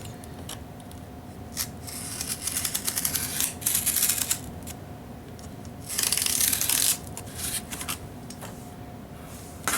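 Hobby knife drawn through cardboard along a straight edge: scratchy cutting strokes, a longer run about two to four seconds in and a louder stroke about six seconds in.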